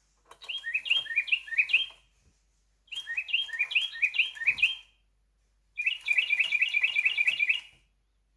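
Sound-sensor toy bird playing a recorded eastern rosella call: three bursts of rapid, repeated whistled chirps, each about two seconds long, with short pauses between. The last burst is a faster chatter.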